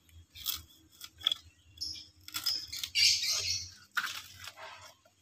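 Coconut bonsai's fibrous leaf sheath being sliced with a knife and torn away by hand: a few short rustling, tearing noises, the longest about three seconds in.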